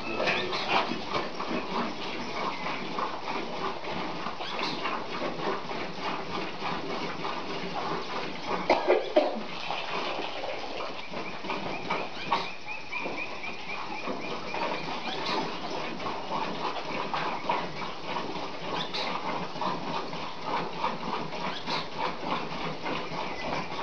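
Animal sounds in a cattle pen over a steady, busy background noise, with a louder burst about nine seconds in.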